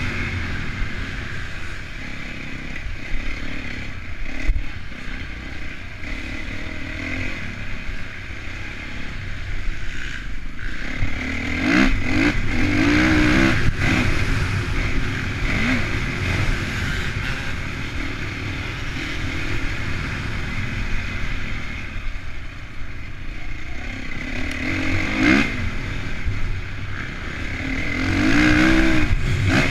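Honda CRF450 single-cylinder four-stroke motocross engine ridden hard, revving up in rising sweeps a few times, with stretches of steadier running in between.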